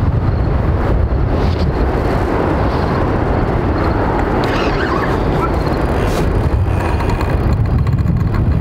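Wind buffeting the microphone: a steady, loud, low rumble.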